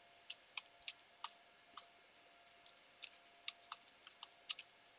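Faint computer keyboard typing: irregular, quick key clicks as a command is typed, with a lull of about a second near the middle, over a faint steady hum.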